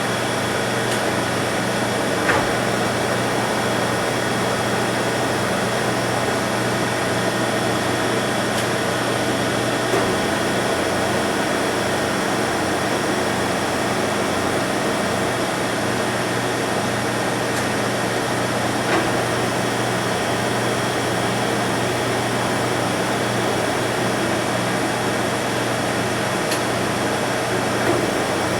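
DeVlieg 43K-72 machine tool running steadily as it mills a rectangle pattern under CNC control: a constant machine drone with a thin high whine and a few faint ticks.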